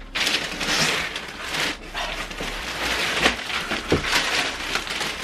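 Clear plastic bag and tissue paper rustling and crinkling as a plastic-wrapped garment is lifted out of a cardboard box, with a few light knocks of the cardboard.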